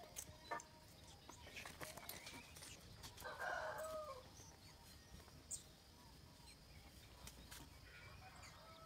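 A rooster crows once, about three seconds in. A few light clicks of bridle hardware are heard as a mule is bridled.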